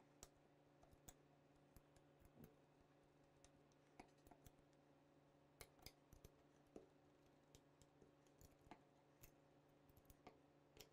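Faint, irregular light clicks and taps of a screwdriver and wrench working M3 screws and nylock nuts tight against an aluminium channel.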